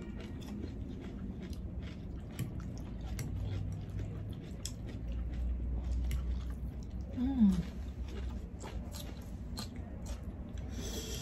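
Close-up chewing and mouth sounds of people eating pansit canton noodles, with many small wet clicks. There is a brief low falling hum about seven seconds in, and a short noodle slurp near the end.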